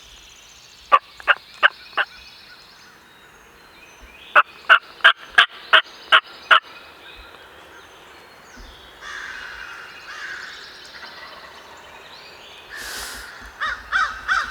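Wild turkey calls: two runs of short, sharp yelps, four notes about a second in and then seven more a few seconds later. Softer, drawn-out calls follow, then a quicker string of notes near the end.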